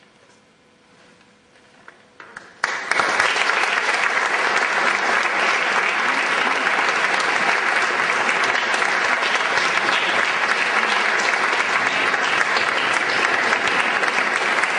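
Audience applause at the end of a live stage performance: near quiet at first, a few single claps about two seconds in, then the whole audience starts clapping together and keeps up steady applause.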